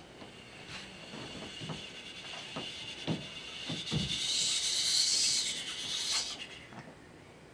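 Bare feet and bodies of dancers knocking and shifting on a wooden floor, with several soft thuds. Over them a rubbing hiss swells to its loudest about five seconds in, then fades out.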